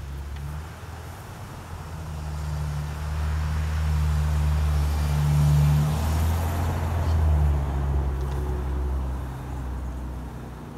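A car or other road vehicle passing by: low engine rumble and tyre noise build up, peak about five to six seconds in, then fade away.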